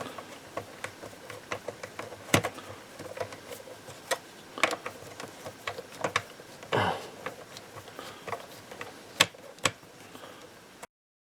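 Plastic clicks and snaps from the shell of a Eufy RoboVac 11S robot vacuum being pried apart by hand. Light ticks are scattered among a few sharper cracks.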